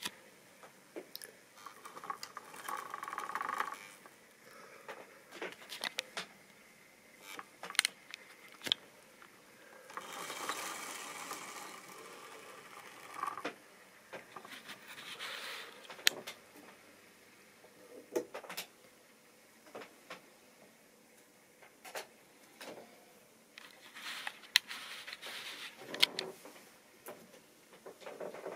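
Tri-ang OO-gauge model train (a class 47 diesel locomotive pulling coaches) running on its track: irregular sharp clicks and knocks as the wheels cross rail joints and points, with stretches of a steadier whirring hum from the running train.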